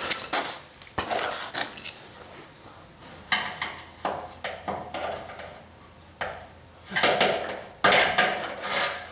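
Irregular metallic clinks and rattles of tools and metal fittings being worked by hand at a pickup's fuel tank filler connection, which is being worked loose, in short uneven clusters with the loudest clatters near the end.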